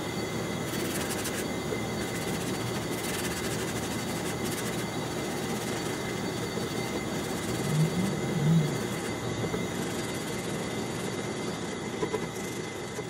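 Dry hand sanding: sandpaper rubbed over filler primer on a 3D-printed plastic helmet, a steady scratchy hiss, with two soft low bumps about eight seconds in and a faint steady high tone behind it.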